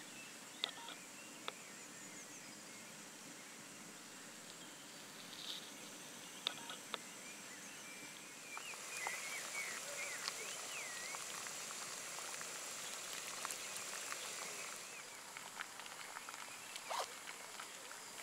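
Small gas-canister camping stove hissing under a pot of boiling water, the hiss louder for several seconds in the middle. A few bird chirps come in around the same time, with scattered small clicks.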